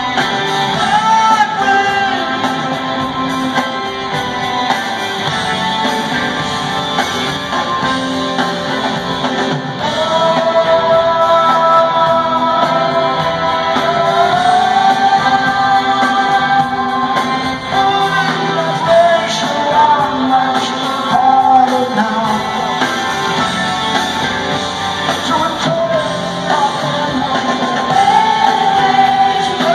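Live rock band playing with a singer and guitar, heard amplified in a large arena hall. Long held notes sit over the band for several seconds in the middle.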